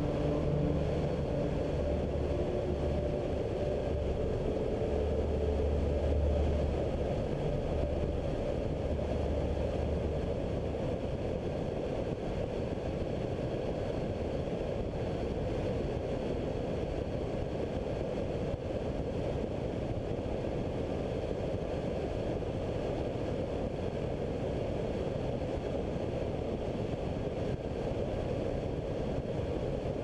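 Ultralight weight-shift trike in flight: the steady drone of its engine and pusher propeller, mixed with wind rushing over the microphone. A low engine hum is strongest for the first ten seconds or so, then the wind noise takes over.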